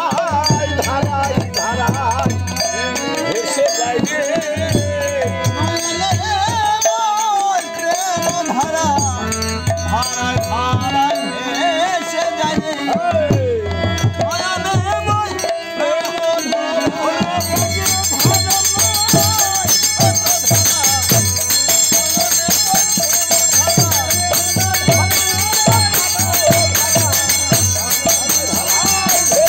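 Bengali kirtan: harmonium and men's voices singing, over a khol drum and small brass hand cymbals (kartal). About 17 seconds in, the bright, jingling high end grows much louder and the playing sounds fuller.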